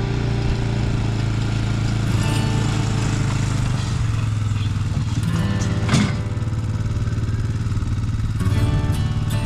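Background music with a steady beat over a quad ATV's engine running as it tows a roping dummy.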